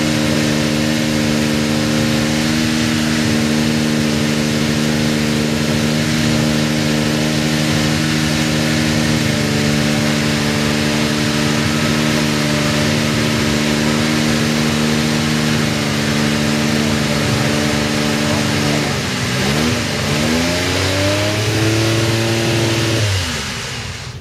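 The McLaren MP4/2B's TAG-Porsche 1.5-litre turbocharged V6 idles steadily in a stationary car. About three-quarters of the way through it is blipped several times, its pitch dipping and rising, and it then shuts off just before the end.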